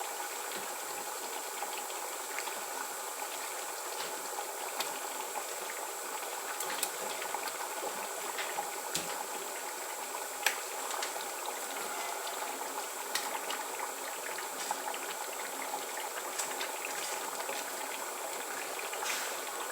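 Pot of tomato stew base (fried tomato paste, blended pepper and onion, with mixed meat) bubbling steadily on the stove, with scattered small pops and ticks.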